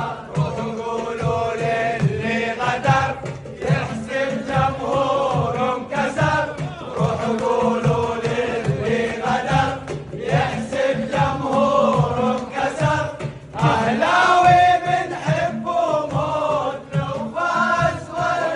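A group of men's voices chanting a song in unison over a steady drum beat.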